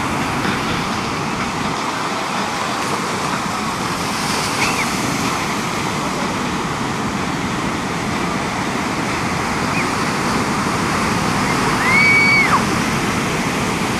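Steady wash of ocean surf. Two brief high chirps come through it, and near the end a louder high whistle rises, holds for about half a second and drops away.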